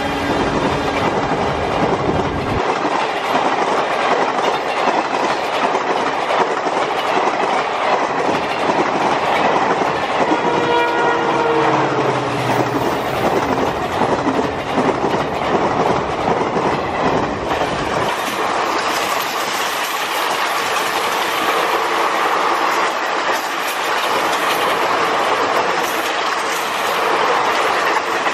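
Express train coaches passing close at speed: a steady rush with wheels clattering over the rail joints. The deep rumble of the departing diesel locomotives drops away after about two seconds, and a locomotive horn sounds briefly about ten seconds in, its pitch sliding slightly down.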